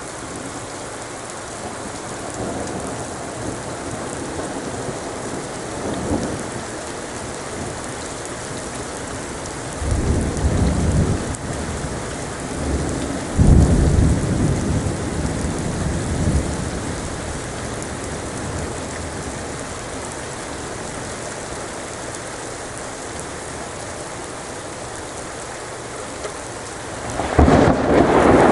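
Thunderstorm: steady rain falling, with thunder rumbling low twice in the middle, the second louder, and a sudden loud thunderclap near the end.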